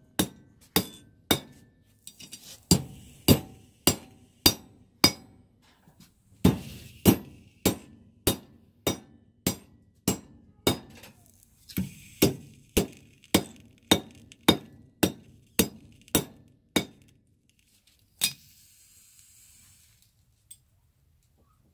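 Blacksmith's hammer striking hot iron on an anvil in steady blows, nearly two a second, each with a short metallic ring, as a hand-forged nail is forged and then headed in a nail header. The blows stop about three-quarters of the way in, and one last strike is followed by a faint hiss.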